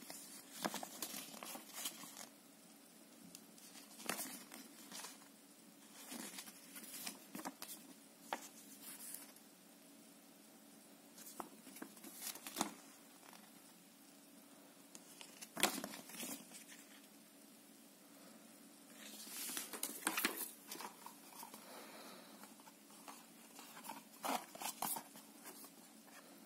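Paper instruction leaflet rustling and crinkling in short, irregular bursts every few seconds as its pages are handled and turned.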